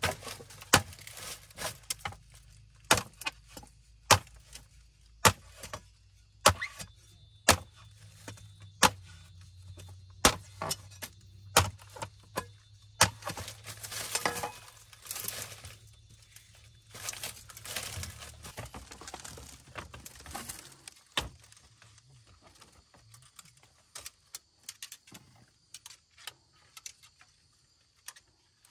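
A run of sharp knocks about a second apart, like tool blows, then several seconds of scraping and rustling that dies down to scattered faint clicks.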